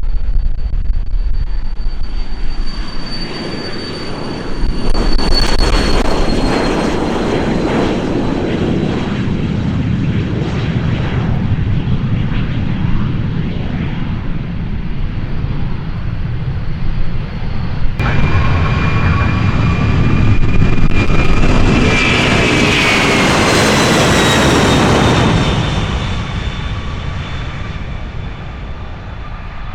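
Jet airliner engines at takeoff power passing close by, their high whine falling in pitch as the aircraft goes past. About 18 seconds in a sudden cut brings a second jet past, louder, with several whining tones sliding down before it fades.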